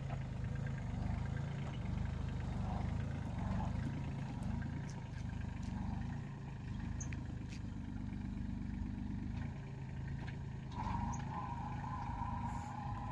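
Kubota A211N compact tractor's diesel engine running steadily as the tractor drives across a ploughed field. About eleven seconds in, a higher steady whine joins the engine sound.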